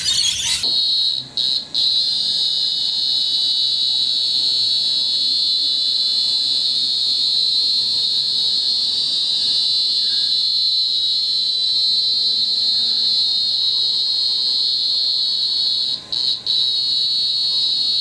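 A cicada calling: one steady, loud, high-pitched buzz, broken by short gaps twice about a second in and twice near the end.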